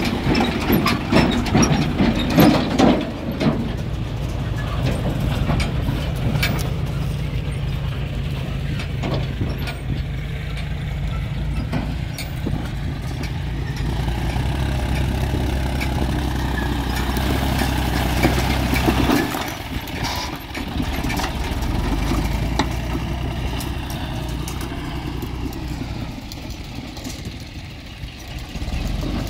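John Deere farm tractor's diesel engine running steadily, its note dropping and changing about two-thirds of the way through. Louder knocks and rattles come in the first few seconds.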